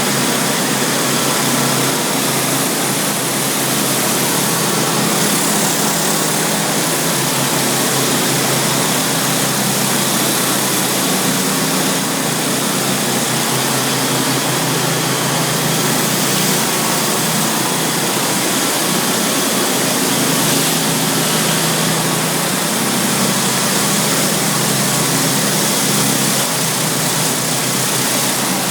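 Pressure washer's engine running steadily under the even hiss of the high-pressure water spray.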